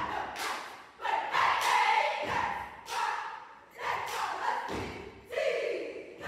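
A dance team chanting in unison and stomping on the stage floor in time with the routine, the sharp stomps cutting through the voices again and again.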